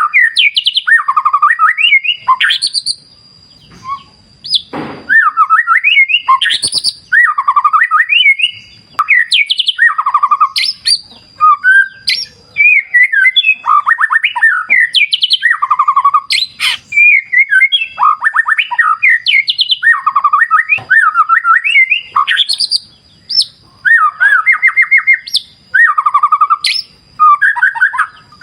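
White-rumped shama singing loud, varied whistled phrases in quick succession, broken by short pauses, over a faint steady thin high tone.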